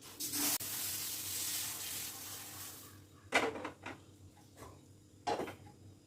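Kitchen sounds: a hiss lasting about three seconds, then a few short knocks and clinks of dishes and utensils.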